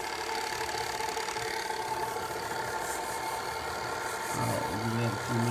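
KitchenAid stand mixer switched on, its motor starting abruptly and running with a steady whine while it churns a thick peanut butter, molasses and sugar mixture. About four seconds in, a lower hum joins it, rising and falling about twice a second.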